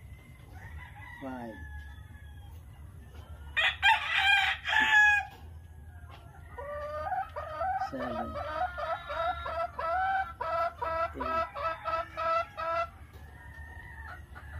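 A rooster crows loudly once about four seconds in. After it comes a long run of quick repeated chicken clucks, about three a second, which stops a couple of seconds before the end.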